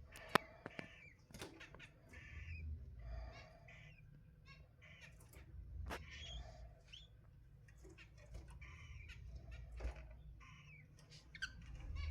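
Cockatiels making short chirps and calls, with many sharp clicks and scratches throughout.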